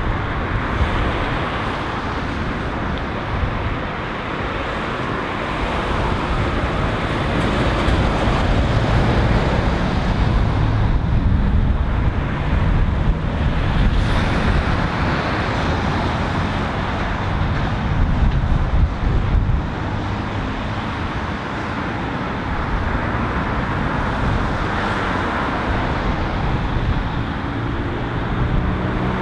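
Road traffic driving round a roundabout: cars, vans and lorries passing with engine and tyre noise. The sound swells as vehicles come by, most between about eight and fifteen seconds in.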